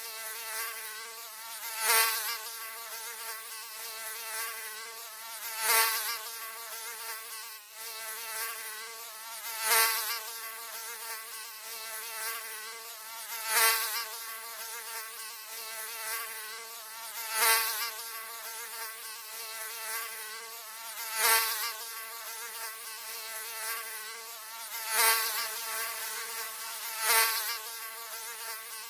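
Mosquito wingbeat whine: a steady, high, thin buzz that swells loudly about every four seconds, as if the mosquito passes close by the ear.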